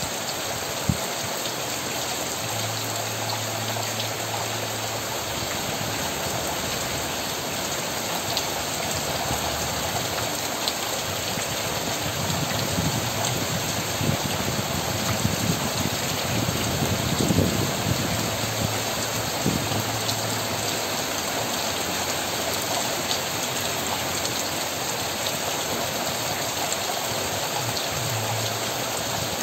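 Steady heavy rain pouring down, a dense even hiss with scattered sharper drop hits on nearby surfaces, swelling a little about halfway through.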